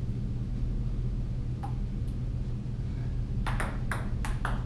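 Table tennis ball, a single faint tap, then a quick rally of about five sharp clicks as the celluloid ball hits paddles and table, over a steady low hum.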